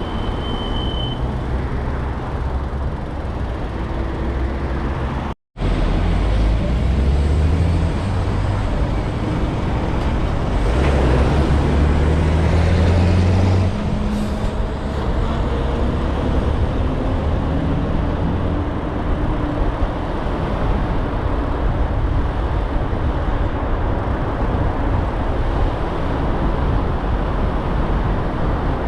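A car driving in city traffic: steady engine and road noise, the engine pitch climbing several times as it pulls away and speeds up. The sound cuts out completely for a moment about five seconds in.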